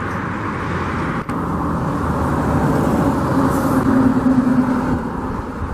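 Road traffic noise, with a passing vehicle's engine hum swelling about three to four seconds in and then easing.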